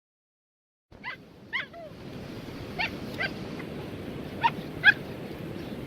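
Husky puppy giving short yipping, whimpering calls in three quick pairs, the last call the loudest, over a steady rush of background noise that starts about a second in.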